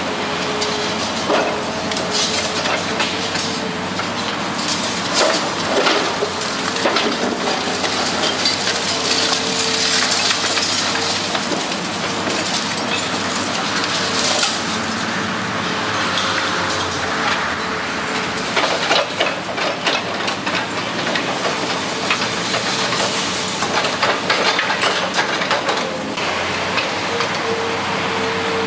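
Hydraulic excavator demolition crusher biting into a concrete building: concrete crunching and cracking, with rubble and reinforcing wire clattering down, in irregular bursts over a steady hum from the machine.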